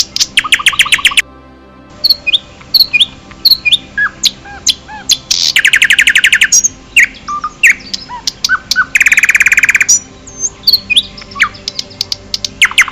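Several wild birds singing and calling: scattered chirps and whistles, with three fast, loud trills of about a second each.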